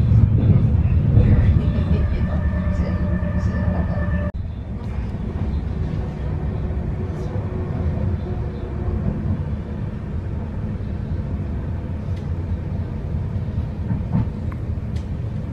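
Electric commuter train heard from inside the carriage: a steady low rumble of wheels on the rails with a steady whine from the electric drive. About four seconds in the sound drops suddenly and the rumble goes on quieter.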